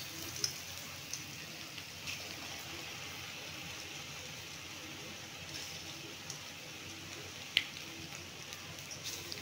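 Besan pakora batter sizzling steadily in hot oil in an iron karahi, with occasional sharp pops and clicks, the loudest about seven and a half seconds in.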